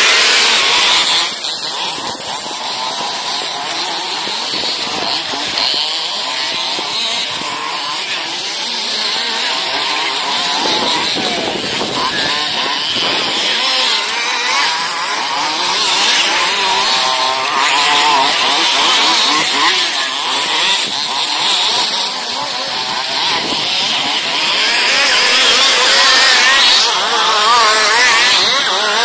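Several large-scale RC off-road buggies with small two-stroke petrol engines, racing together. Their pitch keeps rising and falling as they rev up and back off through the course.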